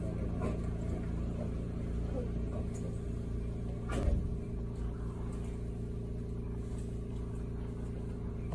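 Steady hum with several held tones over a low rumble inside a Sapporo streetcar standing still, with one short knock about four seconds in.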